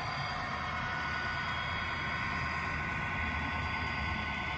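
Factory-fitted DCC sound of a model Class 66 diesel locomotive: the recorded engine note of a running Class 66 played through the model's small speaker, a steady hum of several held tones that sag slightly in pitch, over a low rumble of the train rolling on the track.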